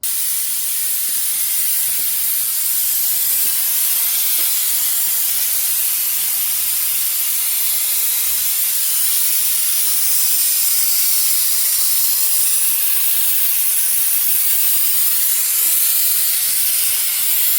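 Compressed air hissing steadily through a pneumatic suction oil extractor, drawing the old oil out of the differential through its filler hole because the diff has no drain plug. The hiss starts and cuts off suddenly.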